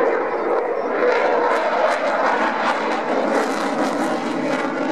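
Eurofighter Typhoon's twin EJ200 turbofan engines in afterburner: a loud, steady jet roar with a rapid crackle running through it.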